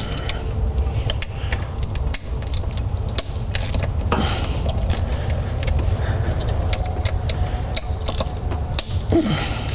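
Small ratchet clicking in short, irregular strokes as T27 Torx screws on the 6R140 transmission's solenoid retainer plate are loosened, over a steady low hum.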